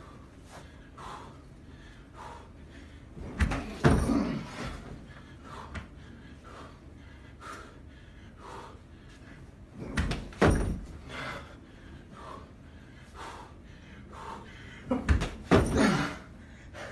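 A person landing backflips on a bed: three heavy thumps of body on mattress, about 4, 10 and 15–16 seconds in, with lighter knocks between them.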